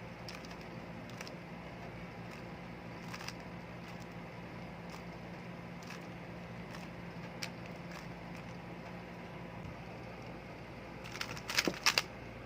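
Rubik's cube being turned through an algorithm: faint, scattered clicks of the layers turning, with a quicker, louder run of clicks near the end. A steady low hum lies under it.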